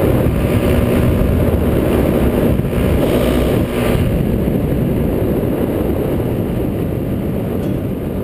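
Paramotor's Miniplane Top 80 single-cylinder two-stroke engine and propeller running steadily in flight, a dense drone heard from the pilot's seat.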